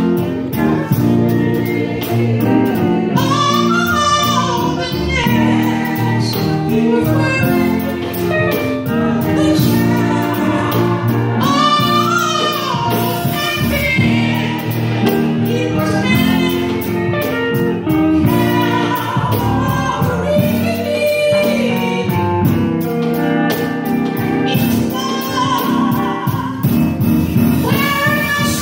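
A man singing a gospel song through a handheld microphone, his voice wavering and sliding between notes, over instrumental accompaniment of held chords with a steady beat.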